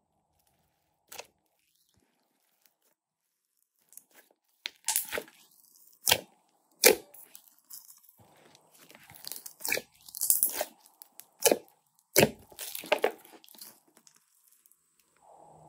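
Glossy slime with foam beads being squeezed and stretched by hand, giving irregular sharp crackling pops and squelches. They start about four seconds in, after a near-silent start with one soft click.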